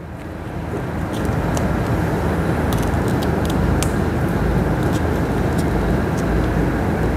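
A steady rumbling noise swells in over the first second and holds, with short crisp crackles of a banana leaf being folded into a parcel and pinned with a toothpick.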